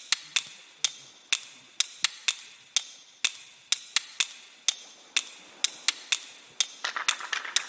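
Sharp clicks or taps at a steady rate of about two a second; near the end a denser, rattling noise joins them.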